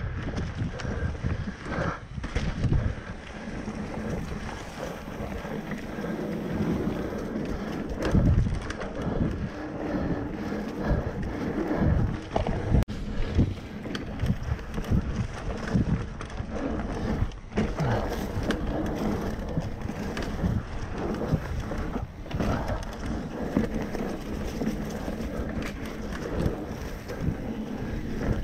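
Mountain bike rolling fast over a rooty dirt trail: tyre rumble with frequent uneven knocks and rattles from the bike, and wind buffeting the microphone.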